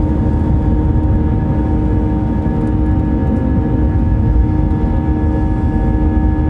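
Airbus A320 jet engines heard inside the cabin during takeoff and initial climb: a steady, loud rumble with a steady hum of several tones above it.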